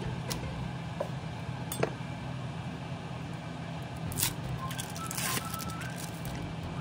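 A few light clicks and clinks of kitchen handling at the stove, over a steady low hum.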